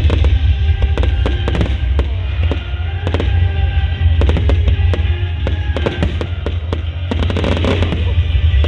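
Fireworks bursting and crackling in quick, irregular succession over a heavy low rumble, with music playing throughout.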